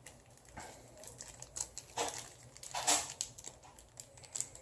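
Paper rustling and crinkling as printed instruction manuals and leaflets from the box are handled and leafed through, in short scattered bursts, the strongest about two and three seconds in.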